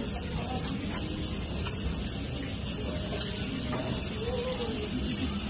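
Wood fire burning under an aluminium pot of heating water: a steady hiss and low rumble with a few faint crackles.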